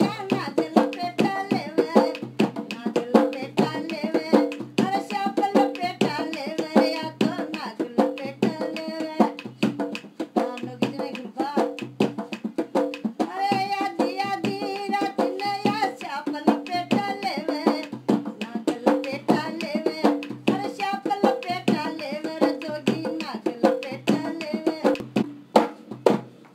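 Rajasthani folk song sung over a dholak playing a steady beat, about two strokes a second: the live music for a kathputli puppet dance. It cuts off suddenly near the end.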